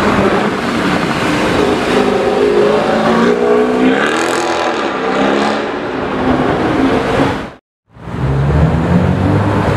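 Mercedes-Benz C63 AMG coupe's V8 accelerating hard past, its exhaust note rising and dipping through the gears. The sound cuts off suddenly about three-quarters of the way in, and a lower-pitched engine follows near the end.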